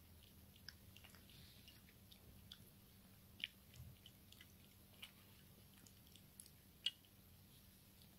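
Three-and-a-half-week-old Bernese mountain dog puppy eating from a bowl: faint, scattered wet smacks and clicks of its mouth, with a few louder ones about 3.5 and 7 seconds in.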